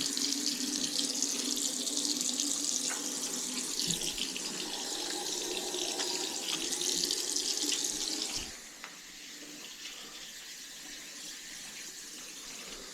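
Sink tap running with water splashing over hands as oil is washed off with dish soap. The splashing falls much quieter about eight and a half seconds in.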